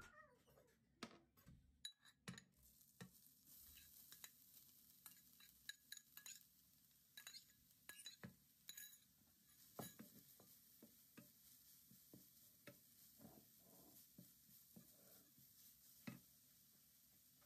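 Faint scattered taps and scrapes of a bowl and wooden spatula against a nonstick frying pan as shredded carrot is tipped in and stirred, over a faint sizzle of the carrot frying in butter.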